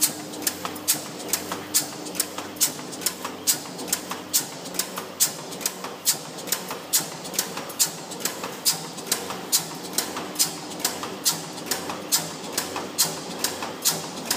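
Mechanical stamping press running a progressive die continuously, with a sharp metallic clack at every stroke, a little over two strokes a second, as it punches and cuts frame corners from coil-fed 0.32 mm aluminium strip.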